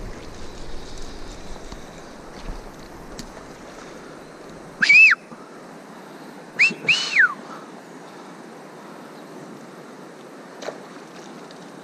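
Three short, loud whistles, each rising and then falling in pitch: one about five seconds in, then two close together a second and a half later. Under them runs the steady rush of the river.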